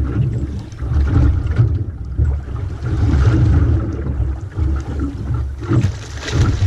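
Water sloshing against the hull of a small aluminium boat, with wind buffeting the microphone in an uneven low rumble. Near the end comes a splash as a hooked Port Jackson shark thrashes at the surface beside the boat.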